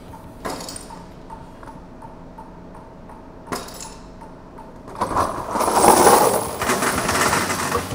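Brass cartridge cases dropped into a cardboard box: a single clink about half a second in and another about three seconds later. From about five seconds in there is a loud, dense clatter of many small metal pieces tumbling into the box.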